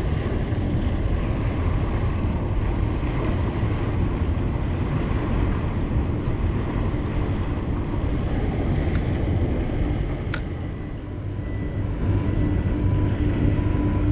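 Steady low rumble of a boat engine, with a single sharp click about ten seconds in.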